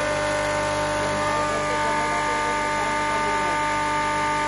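Double-chamber MS pulverizer running at very high speed: a steady machine whine made of several held tones that keep an even pitch and level throughout.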